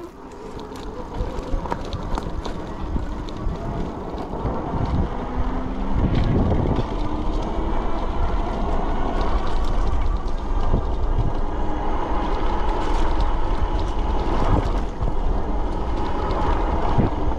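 HeyBike Mars e-bike being ridden over a rough dirt trail: tyre rumble and wind buffeting the microphone, with frequent small knocks from the bumpy ground, growing louder over the first few seconds.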